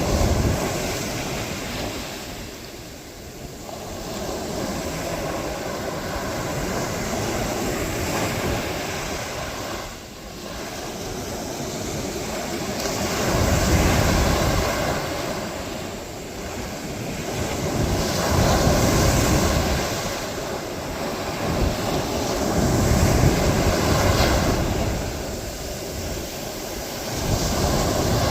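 Ocean waves breaking and washing up a beach, the surf swelling and falling away every few seconds.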